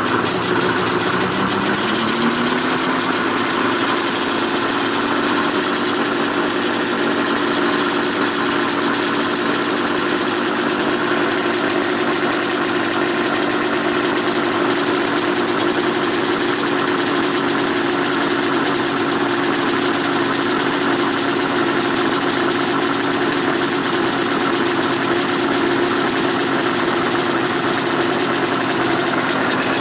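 An old Polaris snowmobile's two-stroke engine idles in extreme cold (−30 °C) just after a cold start. Its idle speed climbs over the first few seconds, then holds steady.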